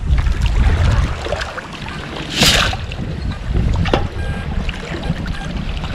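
Long-handled metal sand scoop digging in a river bed: a short rush of splashing water about two and a half seconds in as the scoop comes up and drains, and a sharp tap near four seconds, over a low rumble of wind and moving water.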